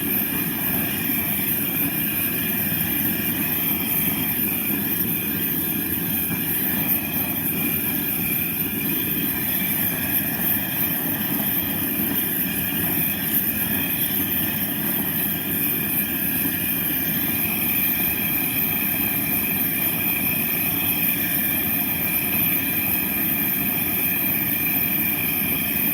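A gas soldering torch burning steadily as it heats sterling silver parts to bring the silver solder to its melting point.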